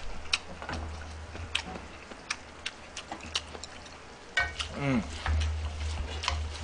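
Wooden chopsticks clicking and scraping against a metal pan as chicken and shredded green onion are tossed together: irregular sharp clicks over a low hum. About four and a half seconds in, a short vocal sound slides steeply down in pitch.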